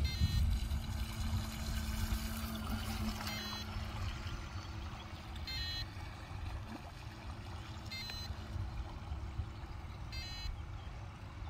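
Short, rapid high-pitched electronic beeps repeating five times, about every two and a half seconds, from the bait boat's remote control or autopilot electronics. They sound over a steady low rumble.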